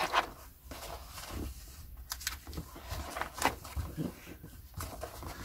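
Books and paper being handled: a hardback and its accompanying magazine moved and paged through, with soft paper rustles and several light taps and clicks.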